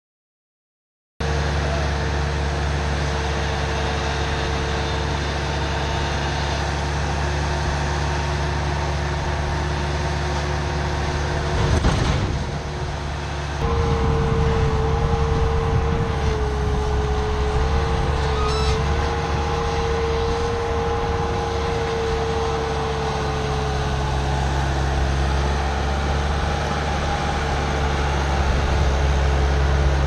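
Heavy equipment engines running steadily, with a whine that wavers in pitch from about fourteen seconds in.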